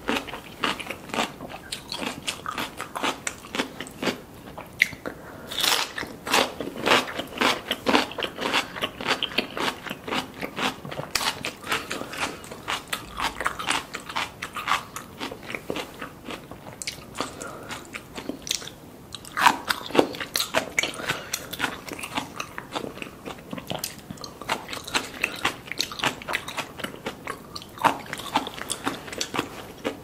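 Close-miked eating sounds: crisp crunching and chewing of raw cucumber sticks and pickled ginger, a quick run of small crunches with a louder bite now and then.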